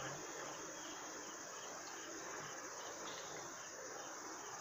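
Faint, steady chirping of insects over low background hiss.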